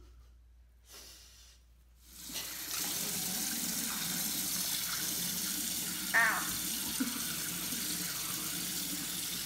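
Bathroom sink tap running steadily into the basin, starting about two seconds in, while hands splash water onto a face to rinse off a gritty charcoal face scrub.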